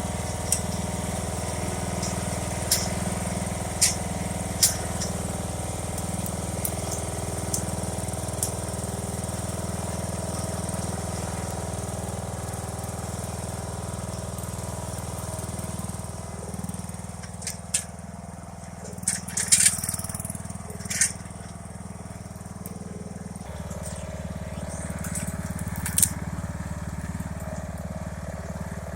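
John Deere Hydro 165 lawn tractor engine running steadily as it pushes a load of sticks and debris. Sharp cracks and snaps of breaking sticks come several times in the first few seconds, in a burst about two-thirds of the way through, and once more near the end. The engine note shifts about three-quarters of the way through.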